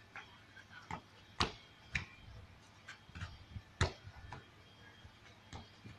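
Football being kicked and trapped: irregular sharp thuds of foot on ball, the strongest about a second and a half in and just before four seconds in, with fainter taps between.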